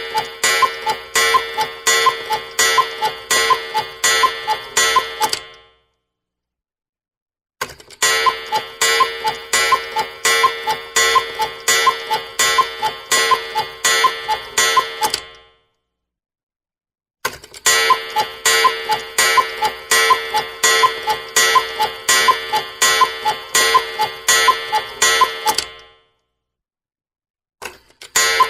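Cuckoo alarm clock sound effect: quick, even strikes, about three a second, over a steady ringing chime tone. It comes in bursts of about eight seconds, each fading out, with two-second silences between them, three times over and starting again near the end.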